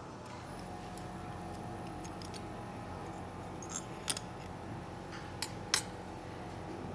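Small metal hand tools clinking: a slim hex driver working the end-cap screws of a DC motor and being swapped for another on the bench. The clicks come as two quick pairs, one about 4 seconds in and one about 5.5 seconds in, over a low steady hum.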